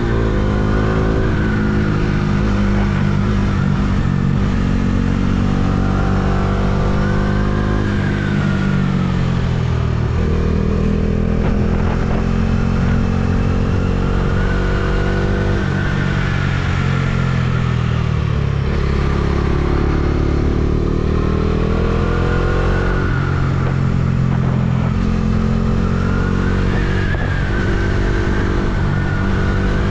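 Motorcycle engine heard from the rider's seat while riding, its pitch climbing under throttle and dropping back several times as the rider eases off and shifts gears, over a steady rush of wind and road noise.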